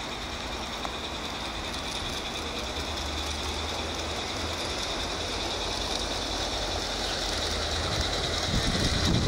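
Garden-scale model train running along its outdoor track, a steady running noise with a high whine that grows slowly louder as it comes closer.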